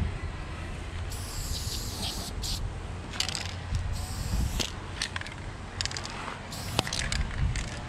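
Aerosol spray paint can fitted with a New York fat cap, spraying in short bursts of hiss. The longest burst is about a second long near the start, followed by several brief ones and a sharp click near the end, over a steady low rumble.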